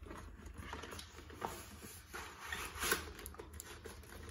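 Cardboard packaging rustling and scraping as a plastic extension board is slid out of its box, with a few light knocks.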